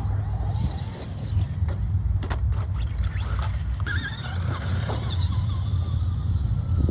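Electric Traxxas RC truck on a test run. A steady low rumble runs throughout, and from about four seconds in the motor whines, its pitch rising and falling with the throttle.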